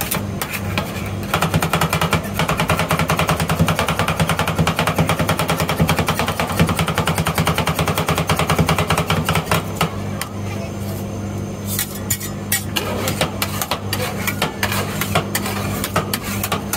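Two metal spatulas rapidly chopping and tapping on a steel rolled-ice-cream cold plate, working a strawberry ice cream mix, many strikes a second. About ten seconds in the fast chopping stops and gives way to scattered taps and scrapes as the frozen ice cream is scraped up into rolls, over a steady low hum.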